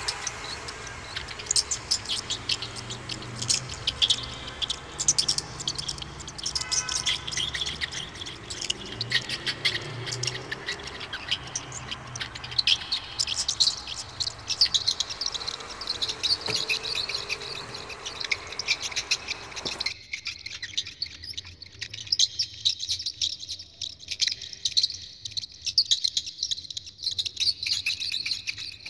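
Hamsters squeaking and chirping: rapid, short, high-pitched squeaks in quick succession. The low background rumble cuts out about two-thirds of the way through.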